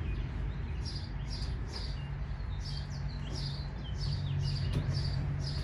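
A bird chirping over and over, about two to three short high chirps a second, over a steady low hum.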